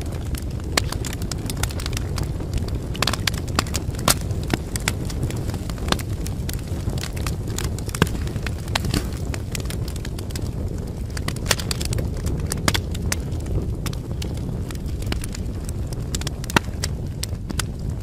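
Wood fire crackling in a fireplace, with many irregular sharp pops and snaps over a steady low rumble.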